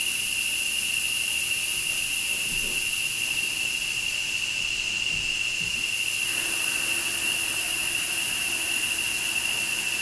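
Insects droning steadily: one high-pitched whine held without a break, with a higher hiss above it that fades for a couple of seconds in the middle and then comes back.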